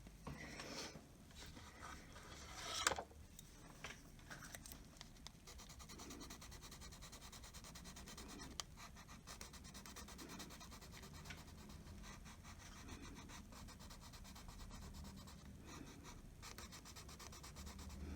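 Faint rubbing and scratching as colored pencils and their tin are handled on a tabletop, with one louder scrape about three seconds in and a few small taps.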